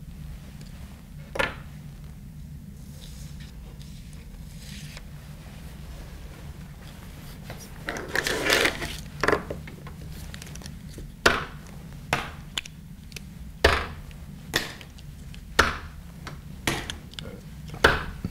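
Handling noise: a person moving about and handling small hard objects such as marker pens. There is a single click early, a brief rustle near the middle, then a run of sharp knocks and clicks about once a second through the second half, over a steady low hum.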